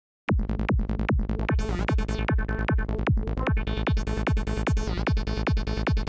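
Psychedelic trance loop playing from a synthesizer project: a kick drum about twice a second with bass, under a short, percussive dark synth lead from NI Massive run through an acid filter in series. It starts about a quarter second in.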